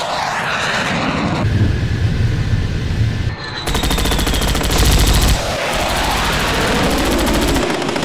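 Jet aircraft rushing past with a sweeping whoosh, then, about halfway through, a long burst of rapid machine-gun fire and a second, quieter burst near the end: dogfight gunfire.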